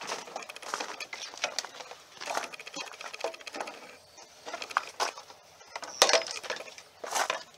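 Molded plastic grille of a 1994 Chevy pickup being worked off by hand: scattered clicks, knocks and scraping of plastic on plastic as the turn signal lamp housings are passed through the grille.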